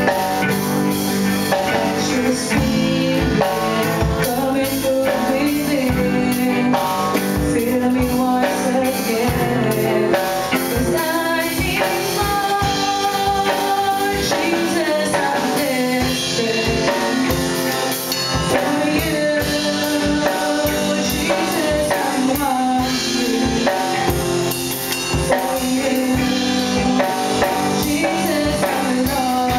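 Live worship band playing: drum kit, bass guitar, electric and acoustic guitars, with a female lead vocalist singing over them.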